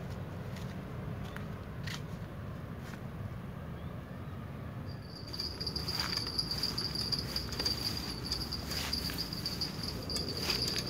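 Riverbank outdoor ambience with a low steady rumble. From about five seconds in, a continuous high-pitched insect drone joins it, with scattered short clicks.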